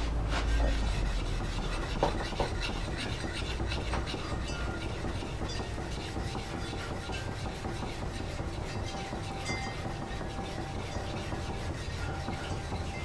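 A hand-held sharpening stone rubbed back and forth along the steel edge of a hewing hatchet, a continuous scratchy rasping. The top of the edge is being honed because it didn't feel quite as sharp as the rest.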